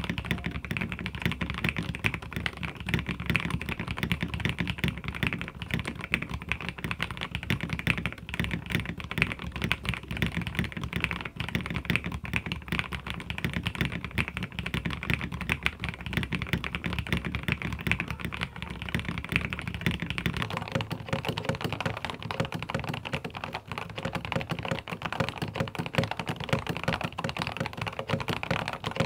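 Continuous fast typing on mechanical keyboards, a dense stream of key clacks: first a transparent-cased Aula board, then a Kemove K87 tenkeyless board. The keystroke sound changes character about two-thirds of the way through.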